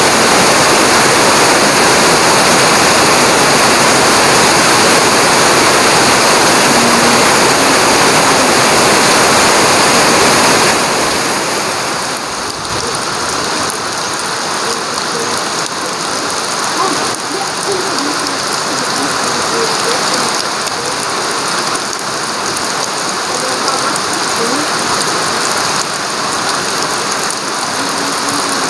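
Heavy rain pouring steadily, a loud, dense hiss. About ten seconds in it suddenly turns softer.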